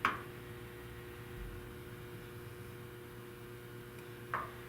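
Quiet room tone with a low steady electrical hum, broken by a brief soft noise at the start and another shortly before the end.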